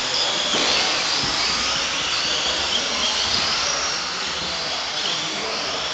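Several Tamiya TT-01 electric RC touring cars racing, the whine of their motors and shaft drives rising and falling in pitch as they speed up and slow down. There is a sharp knock about half a second in.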